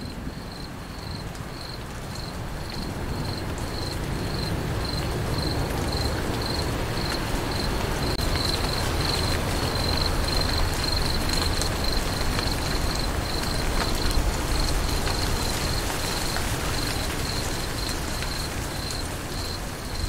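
A cricket chirping in a steady rhythm, about two to three high chirps a second, over the even hiss of falling rain. The rain grows louder towards the middle and eases off near the end.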